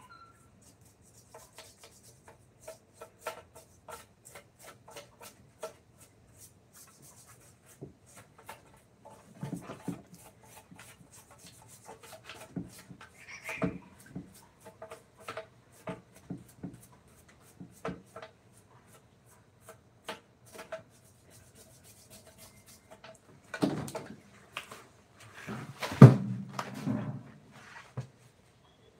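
Hand tools working on wood: a run of short sharp taps and scrapes, one or two a second, with heavier knocks and clatter about 24 and 26 seconds in.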